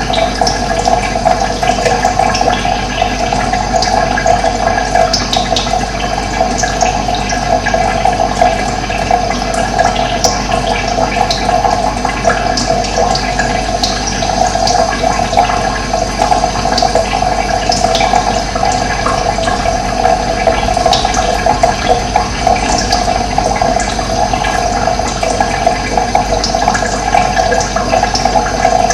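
Running water: a steady, unbroken rush of flowing water.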